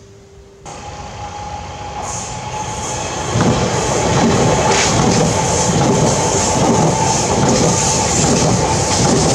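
Francilien electric passenger train approaching and running past through a level crossing. It grows louder over the first three seconds or so, then holds a loud steady rush of wheels on rail, with a steady high tone sounding along with it.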